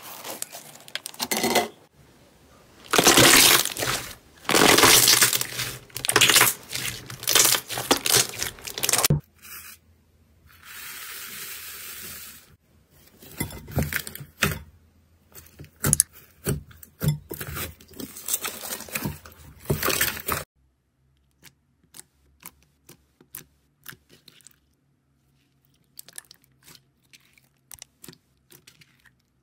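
Slime being pressed through a wire grid, then squeezed and kneaded by hand: dense runs of wet crackling, clicking and popping squelches. A steady hiss lasts about two seconds around a third of the way in, and the last third holds only faint, scattered sticky clicks.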